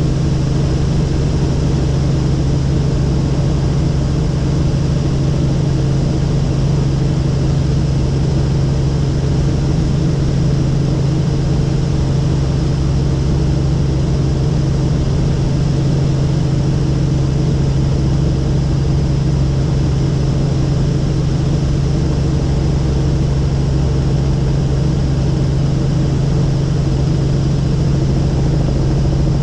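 Helicopter in steady cruise heard from inside the cabin: a constant loud drone of engine and rotor, with a strong low hum over a wide rushing noise.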